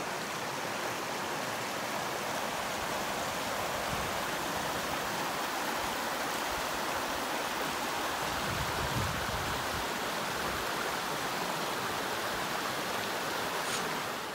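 Running creek water, a steady, even rush with no change.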